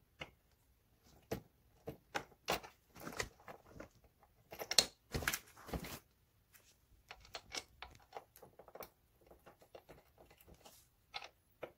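Irregular clicks, taps and light rustling of hands working on gaming-chair parts during assembly, fitting a piece into place, with a louder cluster of knocks about five seconds in.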